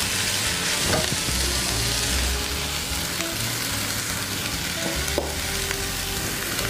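Chicken and spices sizzling in oil in a stainless steel pot, stirred with a wooden spatula: the spice blend toasting with the browned chicken. The sizzle is a steady hiss, with a light scrape or knock of the spatula about a second in and again about five seconds in.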